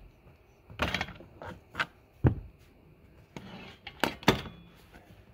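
Screwdriver prying a plastic push pin out of car interior trim: a series of sharp plastic clicks and knocks, the loudest a little over two seconds in.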